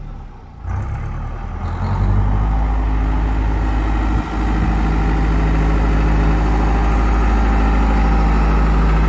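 Tractor diesel engine running close by as the tractor works with its front loader. It picks up revs about two seconds in, then holds a steady loud drone.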